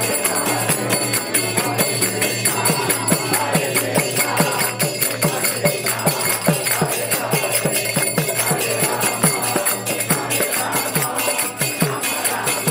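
Kirtan music. Brass karatalas (small hand cymbals) ring in a steady rhythm over a regular drum beat of about two to three strokes a second.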